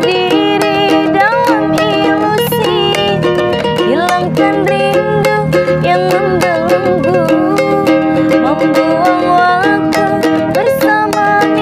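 A woman singing a slow pop song to a strummed ukulele, the chords struck in a steady, even rhythm under the melody.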